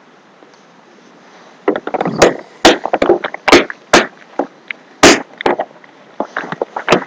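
An irregular string of sharp gunshot-like bangs, starting about a second and a half in, with several loud cracks between two and five seconds in and more after.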